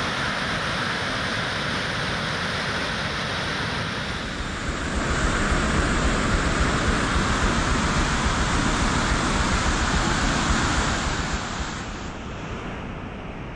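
Muddy floodwater rushing and churning down a swollen stream, a steady noise of fast water. It grows louder and deeper about five seconds in, then drops to a softer rush near the end.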